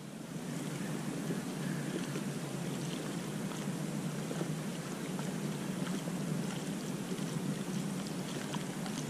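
Steady outdoor wind noise on the microphone, with small waves lapping at the water's edge.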